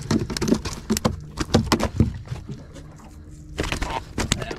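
A freshly landed flathead thrashing on a boat's carpeted deck, its body slapping and knocking against the floor and plastic tackle boxes in a string of irregular sharp knocks.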